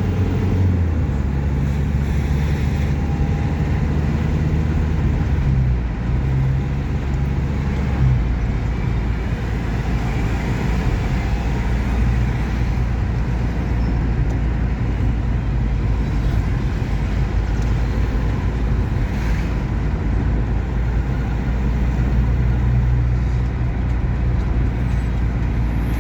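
A road vehicle's engine running steadily with road noise, its low drone shifting in pitch a few times as engine speed changes.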